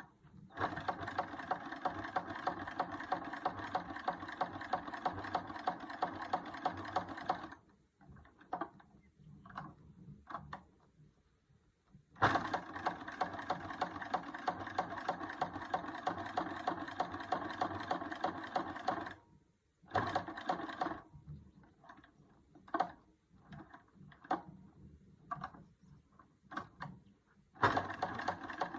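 1947 Singer 17-8 sewing machine stitching in three long runs with a rapid, even rhythm. Between the runs it stops for short, intermittent bursts and clicks.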